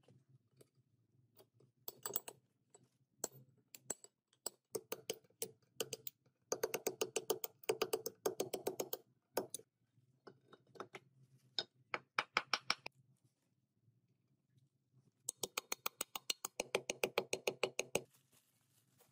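Metal parts of a UAZ 469 gearbox being handled and fitted: runs of rapid, evenly spaced clicks, the longest about six to nine seconds in and again from about fifteen to eighteen seconds in, with scattered single knocks between.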